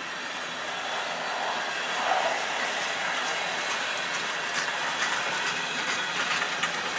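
Freight cars of a CN manifest train rolling past, a steady rumble of wheels on rail with scattered light clicks in the second half.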